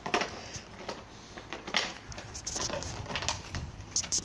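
Irregular clattering and crunching knocks of a bottle being bitten and shoved across stone paving by a Staffordshire bull terrier.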